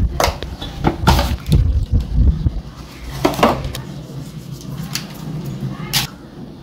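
Kitchen handling noise: scattered sharp rustles and taps, with a low rumble through the first couple of seconds and a faint steady hum afterwards.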